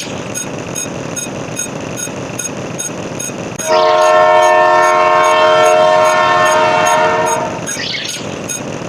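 Train horn sounding a chord of several tones for about four seconds, over the steady rumble and regular clicking of a moving train.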